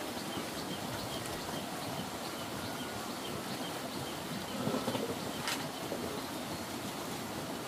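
Outdoor rural ambience: a steady rushing noise with a small bird or insect chirping about twice a second, and two sharp clicks, one at the start and one about five and a half seconds in.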